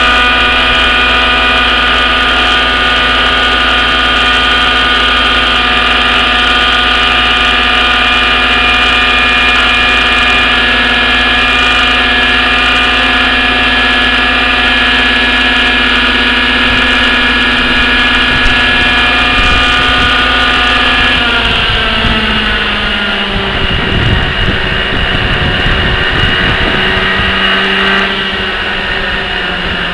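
Thunder Tiger Raptor 50 RC helicopter's two-stroke nitro glow engine running with a rear-exhaust muffler, holding a steady high speed. About two-thirds of the way through its pitch drops and it runs unevenly for several seconds, then settles at a lower, steady speed near the end.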